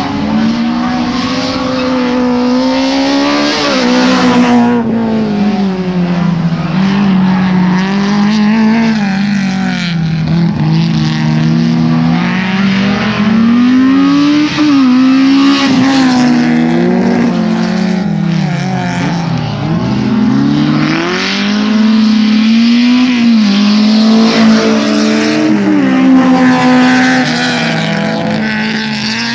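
Racing hatchback engines revving hard, one car after another, the engine note repeatedly climbing under acceleration and dropping as the driver lifts off and changes gear.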